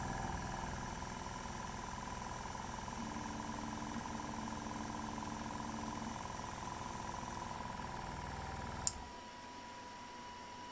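Small tank-type airbrush compressor's motor running steadily while the airbrush is purged with cleaning solution into a cleaning pot, then shutting off with a click about nine seconds in.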